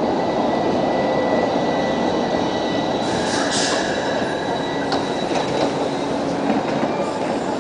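A street tram passing close by, its steel wheels making a steady rolling rumble on the rails with a faint high whine. There is a brief high-pitched squeal about three seconds in.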